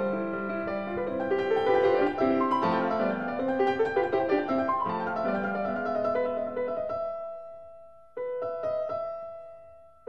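Background piano music: a busy run of notes that dies away about seven seconds in, then a single chord struck near the end and left to ring.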